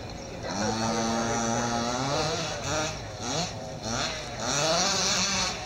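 HPI Baja 5T RC truck's small two-stroke petrol engine, fitted with a DDM pipe, revving up and falling back as it is driven. It holds a long high rev about a second in, then rises and drops several more times in shorter sweeps.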